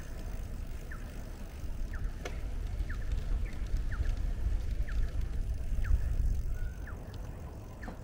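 Wind buffeting the microphone of a bicycle riding along a paved path: a heavy, uneven low rumble that swells through the middle and eases near the end. A faint short high chirp repeats a little more than once a second throughout.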